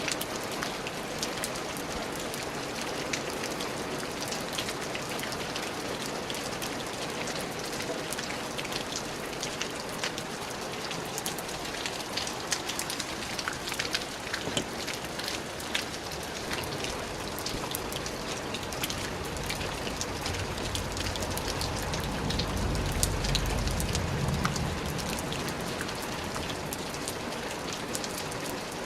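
Steady rain falling, a dense hiss sprinkled with many sharp individual drop hits. A low rumble swells up about twenty seconds in and dies away a few seconds later.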